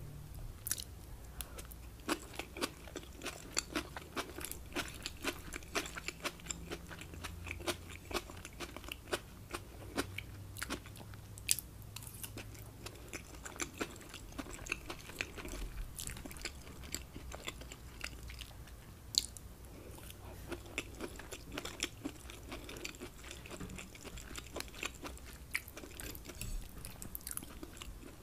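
Close-miked mouth sounds of chewing a mouthful of rice with shrimp and scallops: many small, quick crunches, clicks and wet smacks. A plastic fork scrapes and taps the plate now and then.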